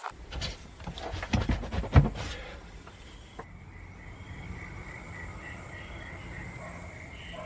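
A few knocks in the first two seconds or so, the loudest about two seconds in. Then a steady high insect chirring with regular pulsing chirps above it.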